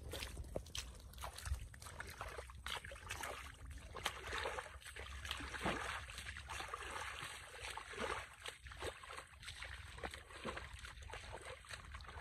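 Bare feet squelching and splashing through shallow muddy water: irregular steps and small sloshes, over a steady low rumble.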